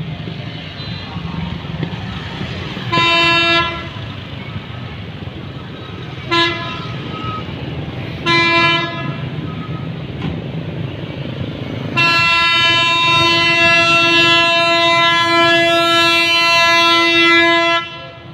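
Train horn sounding on one steady pitch: three short blasts, then one long blast of about six seconds near the end. A steady rumble of street traffic and motorbike engines runs beneath it.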